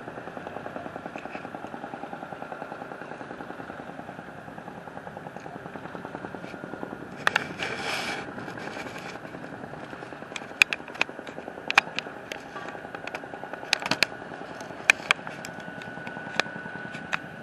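Construction machinery engine running steadily with a fast, even throb. A noisy hiss-like burst comes about seven seconds in, and from about ten seconds on there are a dozen or so sharp clanks and knocks from work at the site.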